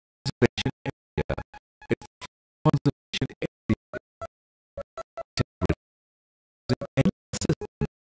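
Background music: a string of short, separate notes with brief silences between them.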